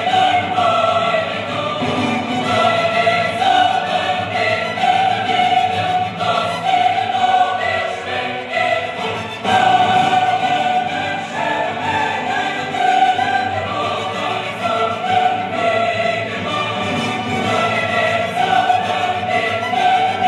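Choral classical music, voices holding long notes over an orchestra, played loud through the speakers of a 1998 Sony LBT-XB50 hi-fi system.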